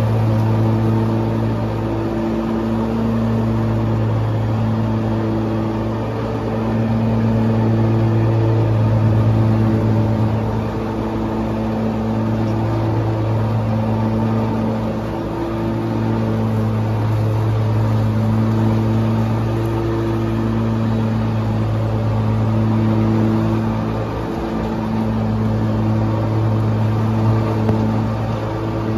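Exmark Lazer Z E-Series zero-turn mower's Kawasaki FX730V V-twin engine running steadily at mowing speed, blades engaged in the grass. The engine note holds an even pitch while its loudness rises and eases slightly every several seconds.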